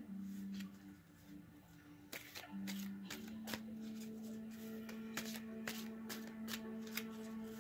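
A deck of tarot cards being shuffled by hand: quick, irregular papery clicks from about two seconds in. Under it runs soft background music of long held notes.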